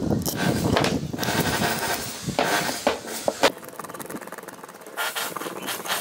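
Handling noise from a small electric fan motor's metal housing being turned in gloved hands and worked with a screwdriver: rubbing and scraping, with a few sharp clicks about three seconds in.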